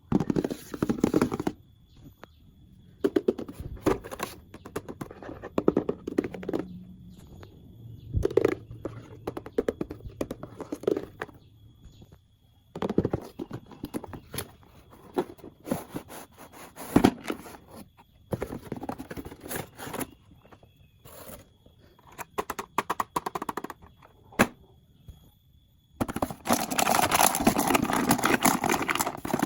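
Hands unboxing toys: scattered clicks, taps and scrapes of plastic and cardboard packaging, with a few seconds of continuous crinkling or tearing near the end.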